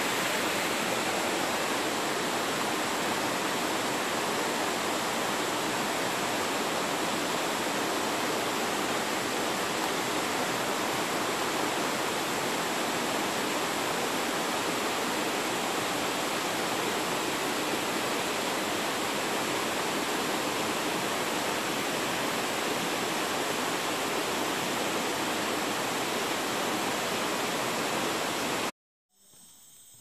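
Steady rush of water from a nearby waterfall, an even hiss with no change in loudness, cutting off abruptly near the end.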